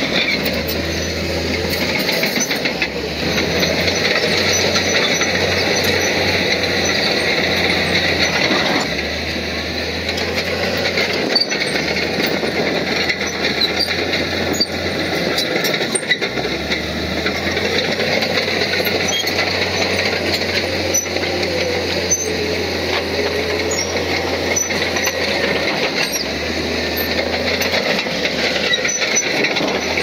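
Crawler bulldozer working: its diesel engine running steadily while the steel tracks clank and squeal, with scattered metallic clicks.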